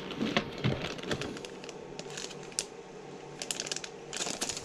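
Clear plastic packaging bags crinkling in irregular crackles as hands handle a bagged cable, busier near the end.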